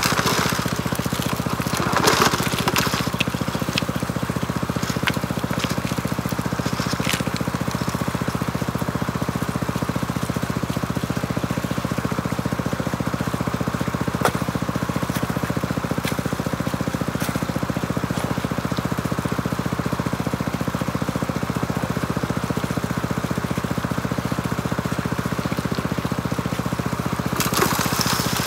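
Small gasoline engine of a high banker's water pump running steadily at constant speed. A few sharp clicks sound over it, with a louder rush of noise in the first couple of seconds and again near the end.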